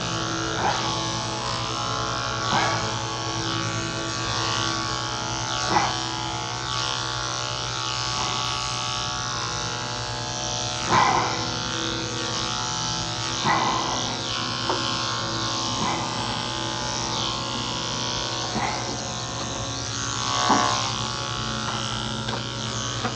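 Cordless electric dog clipper running with a steady buzzing hum as it cuts through a cocker spaniel's coat. About six brief louder swells come as the blade works through the hair.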